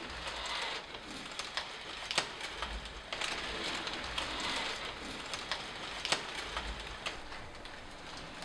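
Crumpled paper covering a small walking robot rustling as the robot moves, with irregular sharp clicks, the loudest about two seconds in and again about six seconds in.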